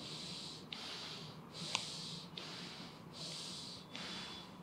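A person breathing audibly through the nose in an even rhythm, about four breaths, each under a second long, while holding a yoga pose, with a couple of faint clicks.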